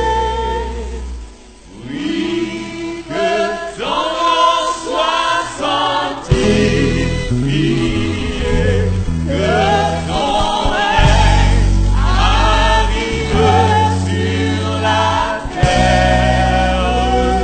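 Gospel worship song: a choir singing over an accompaniment with sustained bass notes, with a brief drop in level about a second and a half in.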